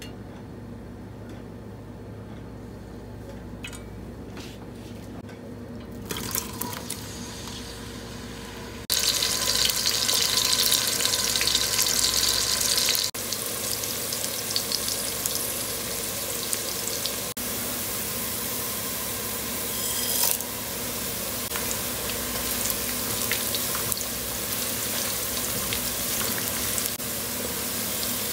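Cooking oil poured into a large aluminium pot, faint at first, then sliced onions frying in the hot oil. A loud burst of sizzling starts about nine seconds in and eases to a steady frying sizzle about four seconds later.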